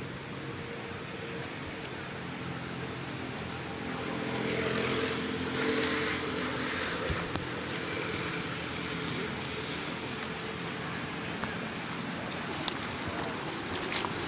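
A motor vehicle's engine hum, swelling about four seconds in and easing off again, over a steady background hiss. A few light clicks near the end.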